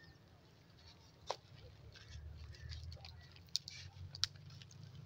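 Faint crackling and rustling of thin dry twigs as a bare tree branch is pulled down by hand, with three sharp snaps: about a second in, and twice near the end, over a low rumble.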